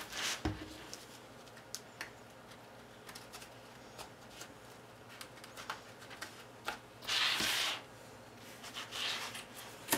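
Cardstock rustling and rubbing as hands handle and press a folded paper tray, with scattered small taps and clicks. The longest rustle comes about seven seconds in.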